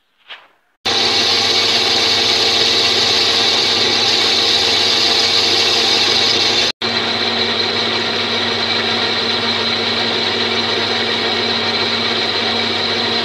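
Metal lathe running under power, its cutting tool taking a cut on a metal ring held in the chuck: a loud, steady machine whine with many steady tones. It starts abruptly about a second in and drops out for an instant about halfway through.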